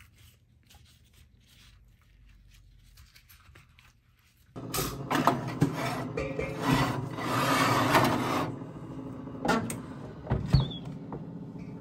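Faint rustling as gloved hands toss chicken and potato pieces, then a loud scraping as a ceramic baking dish is slid onto a metal oven rack, with two sharp knocks near the end.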